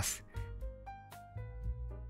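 Quiet background music: a melody of single notes stepping up and down in pitch.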